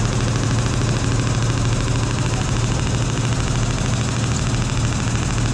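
Fishing boat's diesel engine running steadily: a loud, even engine noise with a strong low hum.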